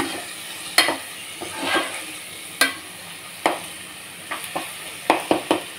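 A spatula stirring and scraping a thick onion-tomato masala around a nonstick pan as it sautés, with a light sizzle underneath. Sharp scrapes and taps against the pan come every second or so, quicker near the end.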